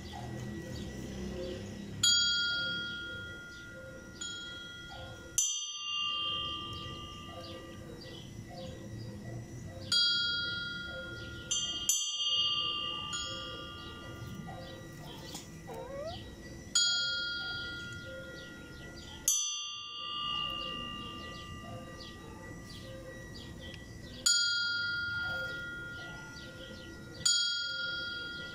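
Church bells tolling a death knell (toque de difunto): heavy strokes that ring out and fade, falling in pairs about every seven seconds, alternating between two bells of different tone, with lighter strokes in between.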